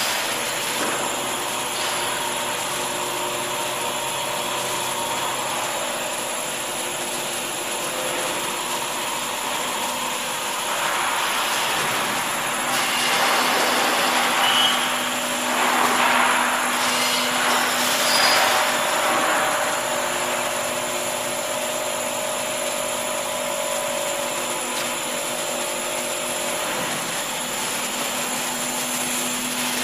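Paper egg tray production line running: a steady mechanical whir and hum from the machine's motors and chain-driven multi-layer drying conveyor, growing louder for several seconds around the middle.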